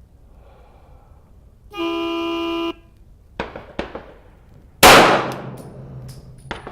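An electronic start buzzer sounds for about a second, about two seconds in. About five seconds in comes one loud 9mm pistol shot from a CZ P-10F with a ringing decay, with a few fainter sharp cracks before and after it.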